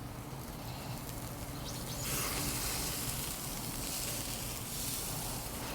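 Whole branzino, oiled and scored, sizzling on a hot grill. The sizzle is steady and grows a little louder about two seconds in.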